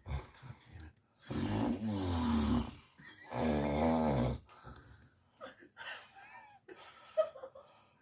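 A person snoring: two long, loud snores in the first half, then fainter breathing noises.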